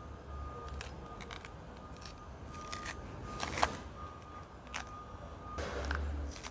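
Green plantain skin being pried and torn off by hand in strips: a series of short crisp snaps and tearing sounds. The sharpest comes about three and a half seconds in, and a longer rip comes near the end.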